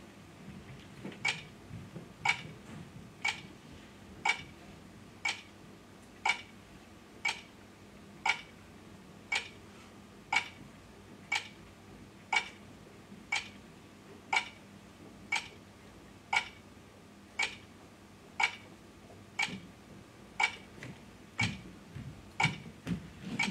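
Steady clock-like ticking, one sharp tick about every second, keeping strict time. A few soft low thumps come in near the end.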